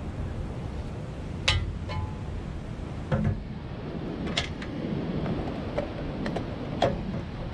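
Cooking utensils clicking and knocking against a non-stick pan and portable stove, a few scattered sharp knocks, over a steady hiss of wind and distant surf.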